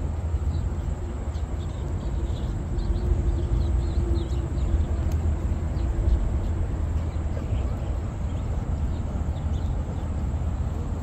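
Outdoor ambience: a steady low rumble, with faint short bird chirps throughout and a faint low hum for a few seconds near the start.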